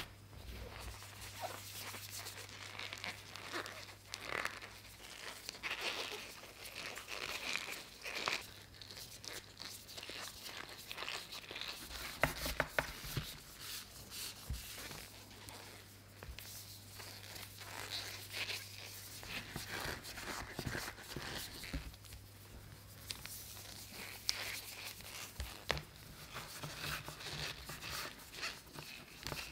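Hands working a sugar ring in a tray of cornstarch: fingers dig, press and rub through the powder with an irregular soft crunching and rustling, as the sugar is pulled and folded into strands for dragon's beard candy.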